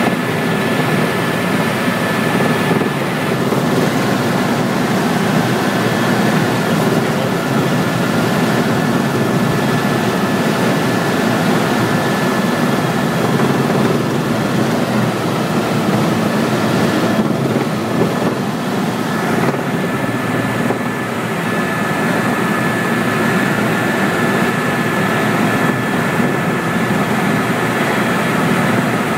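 Tour helicopter in flight: a steady drone of turbine and rotors with a constant high whine over it.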